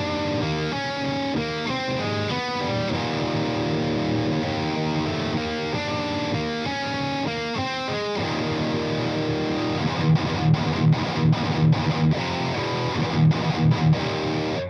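Distorted high-gain electric guitar: an LTD JM-II fitted with Monty's Bethnal Green pickups, tuned to E flat, through a Boss OD-200 overdrive into a Fryette Deliverance amp, sounding chunky. It plays a riff of changing notes, then about ten seconds in switches to short, choppy chords, and cuts off abruptly at the end.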